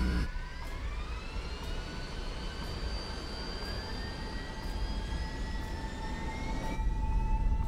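Airbus A320 jet engines spooling up for the takeoff roll: whines rising in pitch over several seconds over a steady tone and a low rumble, growing louder near the end.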